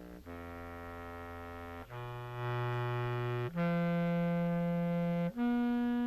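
Contrabass clarinet playing a series of held low notes, each lasting about a second and a half, getting louder as they go. It runs clean through a Horizont modulation pedal set to random slopes, with no fuzz.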